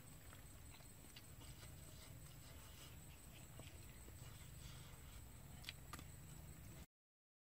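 Near silence: a faint low hum and a steady thin high tone, with a few soft clicks, two of them a little louder near the end. The sound then cuts out completely just before the end.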